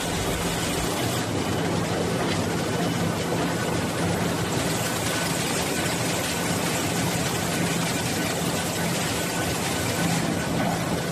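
Stream log feeder for a book-binding machine running: a steady mechanical hum with a low drone under a broad whirring noise from its motors and belt conveyor.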